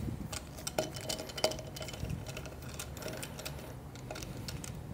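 Screwdriver loosening the ground screw in a DF83 coffee grinder's metal base: scattered light clicks and ticks of the tip and metal parts.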